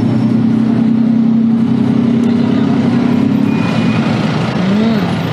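Street traffic with a motor vehicle's engine idling, a steady low hum that fades out about three and a half seconds in. A voice is heard briefly near the end.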